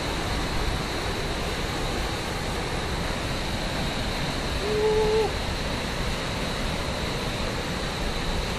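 Steady rushing of a waterfall, a constant even roar of falling water. About five seconds in there is a brief held tone at one pitch, like a short hum or call.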